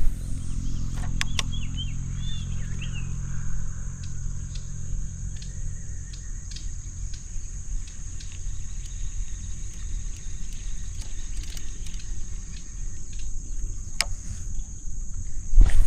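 Outdoor ambience: a steady high insect drone, with a few bird chirps near the start and a couple of sharp clicks. Under it a low hum fades out about halfway through, leaving a low rumble.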